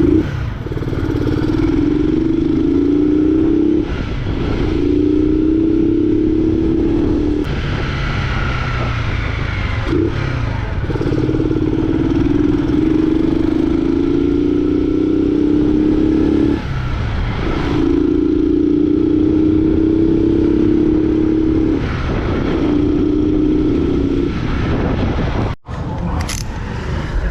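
2007 Honda Fan 125's single-cylinder four-stroke engine, running without its air filter and through a straight-through 'vareta' exhaust, pulled hard while riding. There are several long steady pulls of a few seconds each, with brief breaks between them, and a sudden momentary cut near the end.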